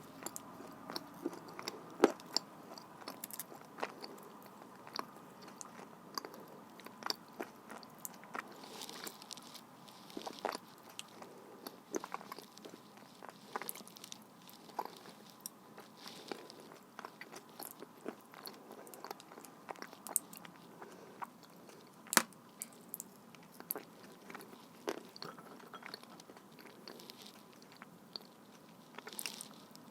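A person biting and chewing blue Uzbek clay, with irregular sharp crunches and clicks a few times a second.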